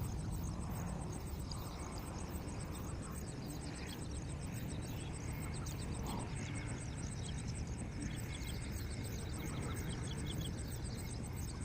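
Many small birds chirping in quick, repeated high notes over a steady low rumble.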